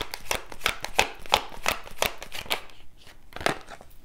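A deck of tarot cards being shuffled by hand: a quick run of crisp card slaps, about five a second, that stops about two and a half seconds in, with one more slap near the end.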